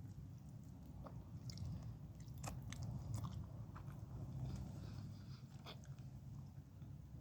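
Close-miked chewing and biting of food, with irregular crisp crunches and crackles.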